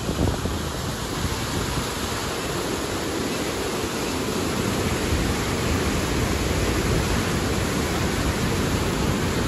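Fast, foaming river water rushing steadily, a constant loud rush of white water.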